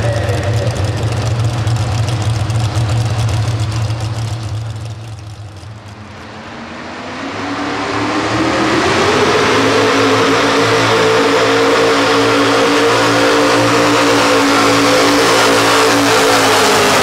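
Economy hot rod pulling tractor engine running steadily. After a brief drop in level about five seconds in, a second hot rod pulling tractor's engine revs up and holds a loud, steady high-rev note under load while pulling the sled.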